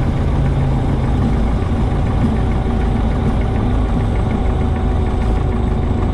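Cessna 140's Continental four-cylinder air-cooled engine and propeller running steadily at low power, heard from inside the cabin as a loud, even low drone.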